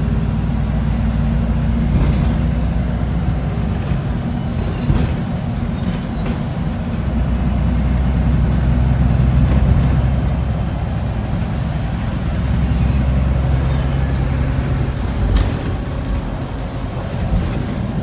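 Single-deck bus engine droning under way, heard from inside the passenger cabin over road noise. Its low pitch shifts a few times as the bus changes speed, with occasional brief rattles.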